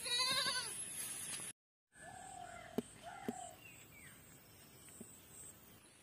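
A young goat bleats once, a loud, quavering call in the first second. After a short silent break, two shorter, steadier calls and a couple of sharp clicks follow more faintly.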